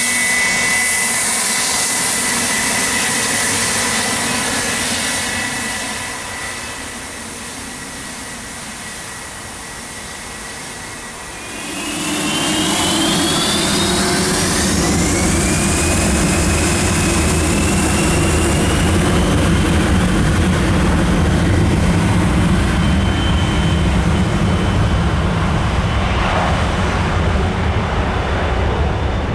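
Gulfstream G280's twin Honeywell HTF7250G turbofan engines: a steady jet whine at first, fading for a few seconds. About twelve seconds in they spool up to takeoff thrust, a whine rising in pitch over several seconds over a loud low engine noise that holds to the end.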